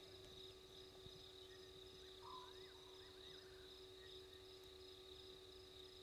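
Faint night chorus of crickets: a steady high trill with a pulsing higher band, over a steady low hum. A short lower call comes once about two seconds in, with a few quick rising chirps just after it.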